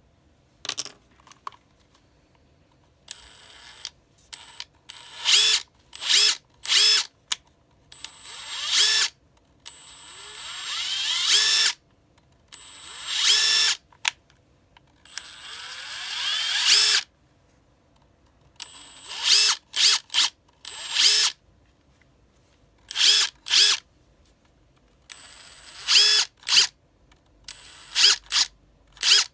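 Makita TD171D 18V cordless impact driver, its brushless motor run in repeated trigger pulls after reassembly from a non-working junk unit. Some pulls are short blips; several are squeezed slowly, so the whine rises in pitch and loudness before cutting off.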